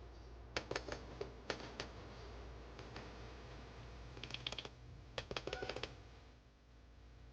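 Small plastic clicks of buttons being pressed on an alarm clock radio: several single clicks, then two quick flurries of clicks about four and five seconds in.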